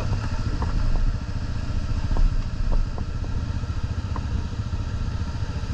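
ATV engine running steadily at low revs, a low ragged rumble, with a few light clicks and knocks scattered through it.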